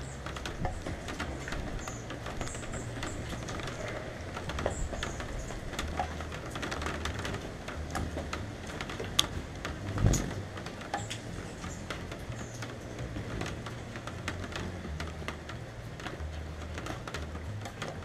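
Rain pattering, with many irregular drops ticking on the camera housing, and gusts of wind rumbling on the microphone. One louder knock comes about ten seconds in.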